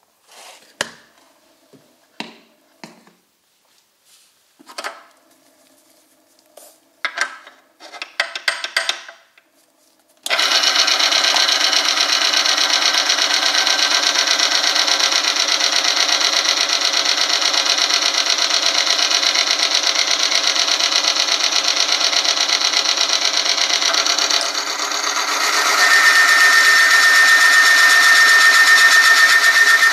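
A few clicks and knocks of parts being handled, then an oil-film friction test machine starts about a third of the way in: its electric motor spins the test ring against the loaded sample in oil, with a steady grinding whirr. Near the end, with more weight on the load lever, it runs louder and a steady high squeal from the loaded contact joins in.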